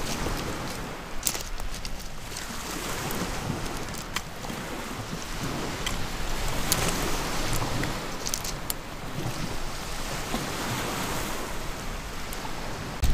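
Small waves breaking and washing over a pebble shore, rising and falling, with wind blowing on the microphone and a few scattered small clicks.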